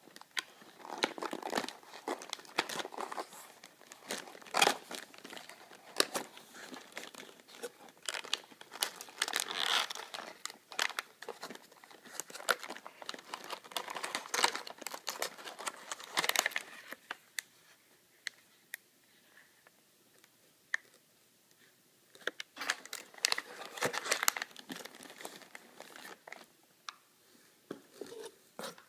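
Plastic packaging crinkling and a small cardboard box being handled and opened by hand: irregular rustles, crackles and snaps, busiest in the first half, dying down for a few seconds past the middle, then picking up again briefly.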